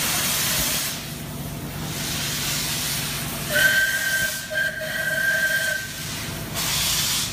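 Steam locomotive blowing off steam with a steady hiss, louder near the start and near the end; a little past halfway its steam whistle sounds a multi-tone blast for about two seconds.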